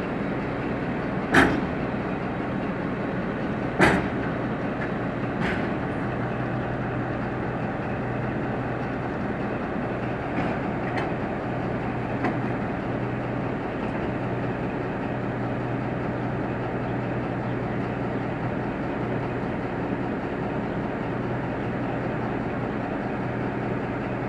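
Steady droning of an idling locomotive's engine, with two sharp metallic clanks about one and a half and four seconds in, and a few fainter knocks later.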